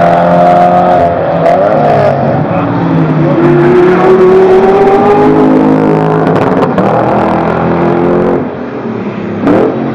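Lexus LFA's high-revving V10 engine passing close by at speed. The pitch climbs under acceleration, then dips and jumps at gear changes, with a sharp rev rise near the end.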